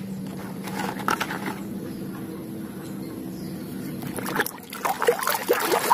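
A few faint knocks of plastic toys being handled, then muddy water sloshing and splashing in a plastic tub as a toy gun is swished through it by hand, starting about four and a half seconds in, over a faint steady hum.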